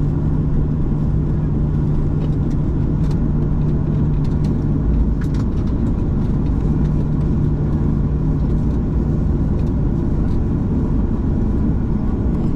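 Cabin noise of a Boeing 737-900ER taxiing after landing: the steady run of its CFM56 turbofans at taxi power and the low rumble of the airliner rolling on the pavement. A steady low hum runs through it, breaking off briefly about halfway through.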